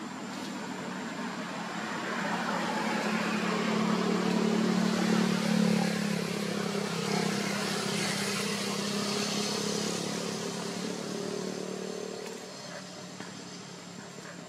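A motor vehicle's engine passing by: a steady hum with noise that swells over the first few seconds, is loudest around the middle, and fades away after about twelve seconds.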